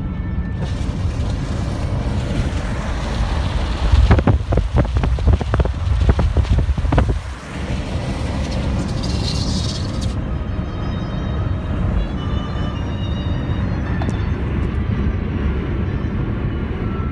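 Car interior noise while driving on a wet road: a steady low engine and road rumble with a rushing hiss of tyres on wet tarmac. There is a louder, uneven rushing stretch between about four and seven seconds in, and the hiss falls away near ten seconds.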